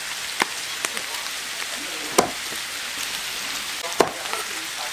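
Steel cleaver chopping through pork intestine and striking a thick wooden chopping block: about four sharp knocks, the loudest about two seconds in and again about four seconds in, over a steady hiss.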